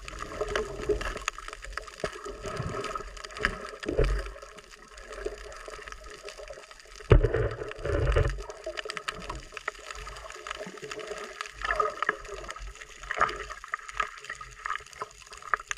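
Water sloshing and gurgling in irregular splashes, with one sharp knock about seven seconds in.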